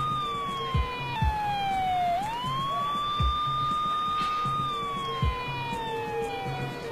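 Ambulance siren wailing: a held high tone that slides slowly down, sweeps quickly back up and holds, then slides down again. Low thuds come every second or two under it.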